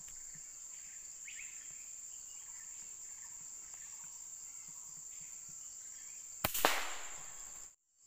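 Steady high-pitched buzz of insects with a few faint bird calls, broken about six and a half seconds in by one sharp, loud gunshot that fades over about a second, after which the sound cuts off suddenly.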